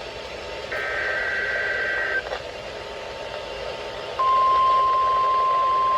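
NOAA Weather Radio receiver sounding an Emergency Alert System Required Weekly Test: about a second in, a burst of SAME header data, a buzzing two-tone digital screech lasting about a second and a half. About four seconds in, the loud, steady 1050 Hz weather-radio alert tone starts and holds, all over a constant radio hiss.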